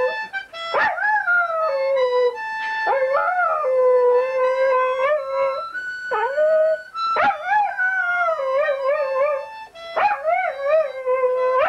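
Dog howling along to music: several long howls, each rising sharply and then sliding down or wavering, over steady held notes of a flute-like tune.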